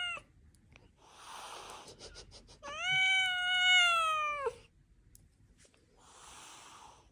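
A domestic cat gives a long, drawn-out meow in the middle, falling in pitch as it ends, with the end of another meow right at the start. Breathy hissing noises come before and after the long meow, and a few quick clicks just before it.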